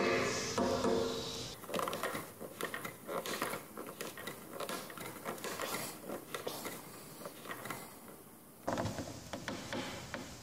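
Brief background music, then a wooden C-clamp's threaded screw being cranked down hard under load, a long run of dry creaks and clicks from the turning screw and the straining wooden frame; it stops about three quarters of the way through.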